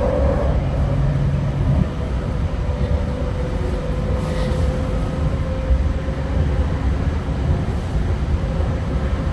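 TriMet MAX Siemens S70 light rail train running between stations, heard from inside the passenger car. A steady low rumble of the wheels on the rails carries a faint, nearly steady whine.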